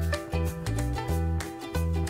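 Background music: an upbeat tune with short, changing bass notes and a steady beat.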